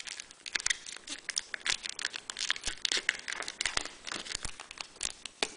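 Foil wrapper of a Pokémon card booster pack crinkling and tearing as it is peeled open by hand, a rapid, irregular crackle.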